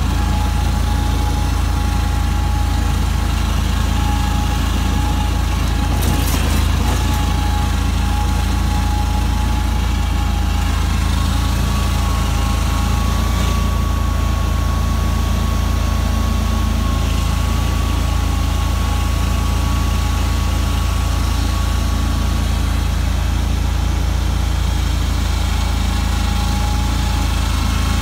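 Great Dane Chariot stand-on commercial mower running steadily, heard from on board, with a heavy low rumble and a steady whine that steps up in pitch about eleven seconds in and drops back near the end.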